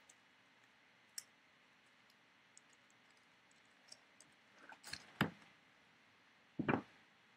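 Handling of trading cards: scattered faint clicks, then a few sharper clicks and taps about five seconds in and a short louder rustle near the end.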